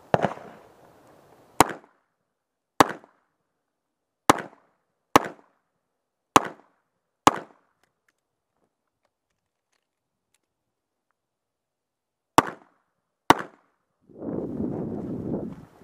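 Revolver shots fired at a steady pace, seven about a second apart, then a pause of about five seconds and two more shots. Near the end comes a second and a half of muffled rustling noise.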